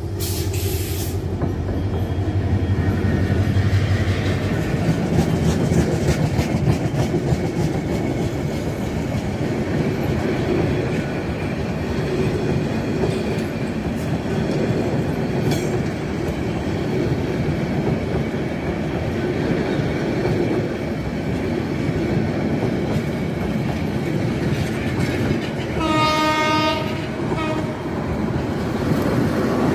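Bangladesh Railway diesel locomotive passing at the head of an intercity passenger train, its engine's low drone strongest in the first few seconds; then the coaches roll by close up with continuous wheel-on-rail rumble. A brief pitched tone sounds near the end.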